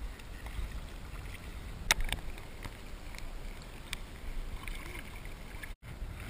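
Wind rumbling on an action camera's microphone over water lapping in the shallows, with a sharp knock about two seconds in and a fainter one a couple of seconds later.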